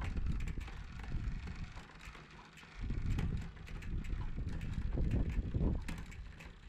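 Mountain bike drivetrain turned by hand at the pedal: the new chain running over the rear cassette and derailleur pulleys with a rapid, irregular light clicking as the rear wheel spins. A low rumble of wind on the microphone rises and falls beneath it.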